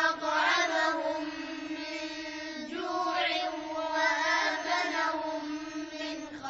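Wordless vocal chanting: a voice holds a sustained tone while melodic runs glide up and down over it, with a dip in pitch a little under halfway through.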